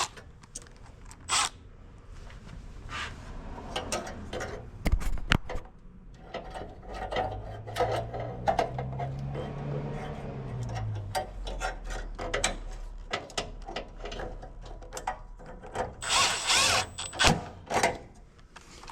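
Cordless drill-driver running once for a few seconds, its motor pitch rising then falling, among clicks and knocks of tools and metal parts being handled. Loud rustling scrapes come near the end.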